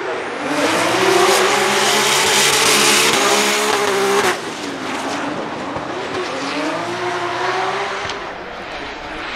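BMW M3 E92 drift car with a Toyota 2JZ straight-six, running at high revs while drifting, its tyres squealing. The engine pitch climbs for the first four seconds, drops sharply, then climbs again near the end.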